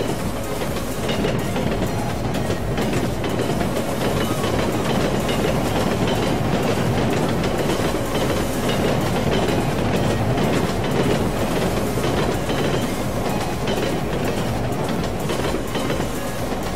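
Dubbed-in sound effect of a train rolling through, its wheels clattering steadily over the rail joints.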